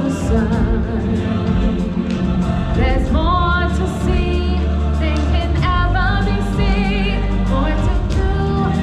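Live stage-show music with a choir singing over a full backing track; high sung lines with a wavering vibrato come in about three seconds in.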